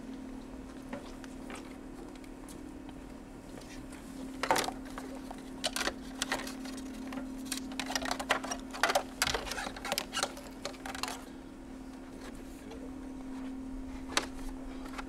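Scattered clicks, taps and light clatter of hands fitting fairing parts and fittings on a motorcycle, over a steady low hum. The clicks bunch up in the middle, with one more near the end.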